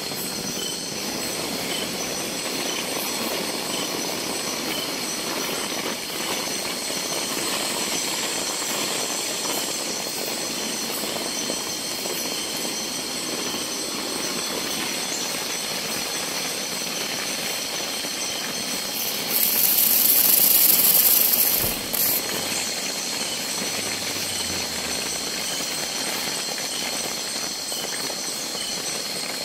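Steady heavy rain falling, with faint steady high-pitched tones above it. About two-thirds of the way through, a loud high hiss rises over the rain for about two seconds, then cuts off.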